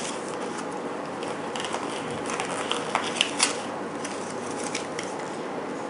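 Small paper medication packets and the kit's plastic pockets crinkling and rustling as they are handled, with a few light clicks scattered through; the sharpest comes a little over three seconds in.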